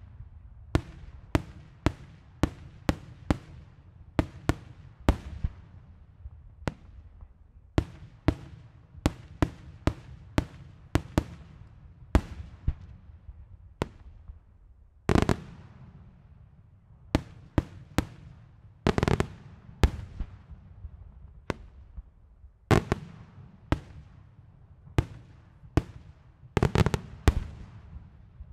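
Daylight aerial fireworks shells bursting overhead in a rapid, irregular series of sharp bangs, about one to two a second, each trailing off in echo. A few heavier, longer booms stand out about halfway through, a little later, and near the end.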